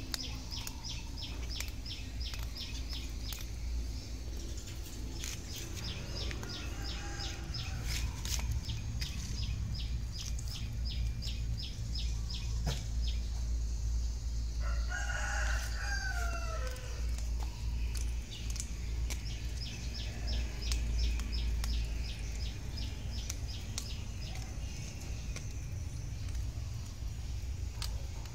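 A rooster crows once about halfway through, a single call that rises and falls over roughly two seconds. Under it is outdoor ambience: a steady low rumble, and in long stretches a fast, evenly repeating high-pitched chirping.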